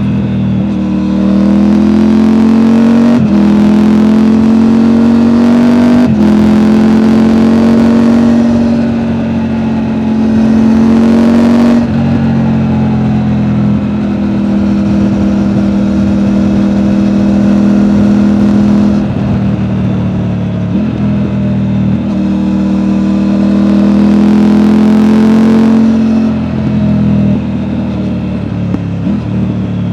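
Triumph Tiger 900's three-cylinder engine through an Akrapovic exhaust, heard from the rider's backpack while riding. It pulls up through the gears, the pitch climbing and breaking at each shift over the first dozen seconds, then holds steadier revs with a few throttle changes.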